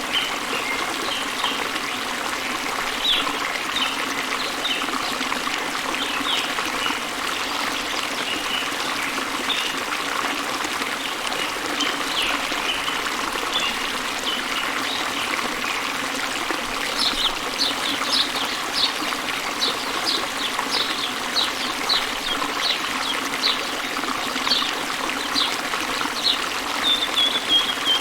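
A stream trickling steadily, with small birds chirping over it. From a little past halfway, one bird repeats a short, high, falling note about twice a second.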